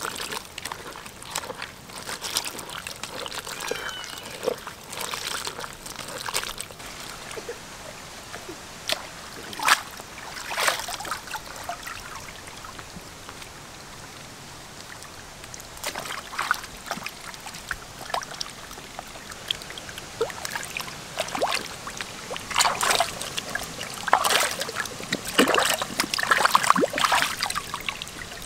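Water splashing and trickling in short, irregular bursts over a steady hiss, busiest near the end.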